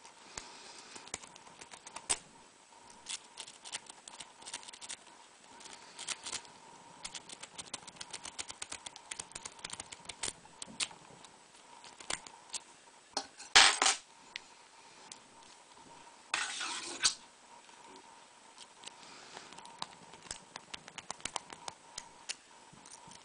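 A lockpick rake scrubbing the pins of a U-Haul 44 mm padlock, with many small irregular metallic clicks and ticks. There are two louder bursts of metal rattling, each under a second, about 13 and 16 seconds in.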